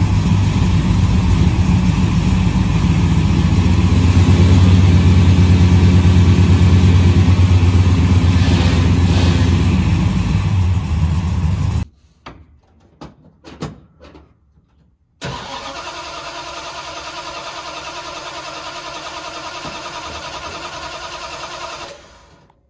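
1969 Dodge Charger Daytona's 440 V8 running loudly, getting louder about four seconds in. It cuts off suddenly, and after about three seconds of near silence a 1970 Dodge Charger 500's engine idles steadily, quieter.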